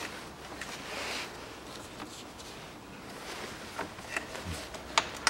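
Gloved hands fitting rubber vacuum hoses and wiring back into place in an engine bay: soft rustling and handling noise, then several light, sharp clicks in the last second and a half.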